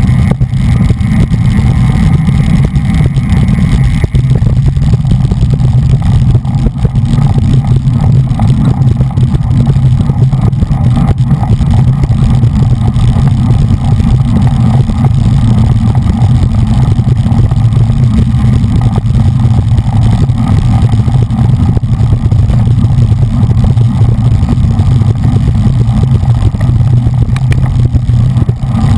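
Wind rushing over the microphone of a bicycle-mounted GoPro at road-race speed: a loud, steady low rumble.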